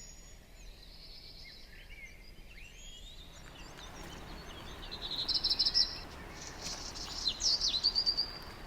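Wild birds singing, with two bursts of fast, high trills in the second half, over a steady background hiss that broadens about a third of the way in.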